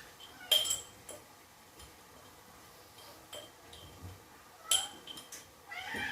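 A metal spoon clinks sharply against a container twice, about half a second in and again near the end, with a few lighter taps in between, as spoonfuls of seasoning are measured out. A cat begins meowing just before the end.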